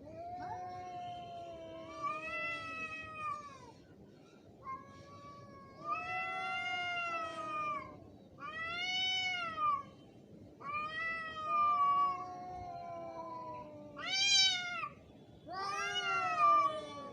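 Angry cats caterwauling: about six long, drawn-out yowls one after another, each rising and falling in pitch, with two voices overlapping at times, typical of a cat fight standoff.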